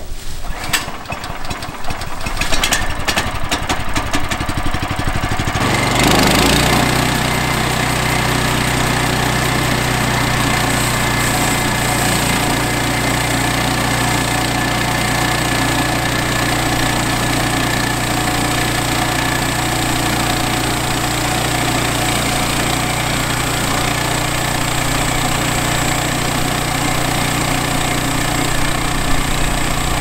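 Small gasoline engine of a Woodland Mills HM122 portable band sawmill being started. It catches about six seconds in, after a few seconds of irregular clattering, and then runs at a steady idle.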